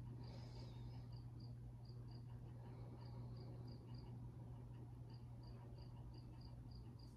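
Faint insect chirping, like a cricket: short high chirps in runs of about three a second, over a steady low hum.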